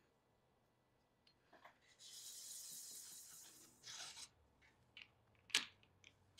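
Mostly quiet handling of small machined aluminium parts around a steel rod: a faint scraping rub about two seconds in, a brief rub a little later, and a light metallic click near the end as a part is set in place.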